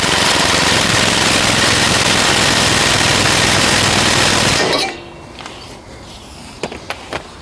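Impact wrench running in one long burst of about five seconds, tightening a front control arm bolt, then stopping suddenly; a few light knocks follow near the end.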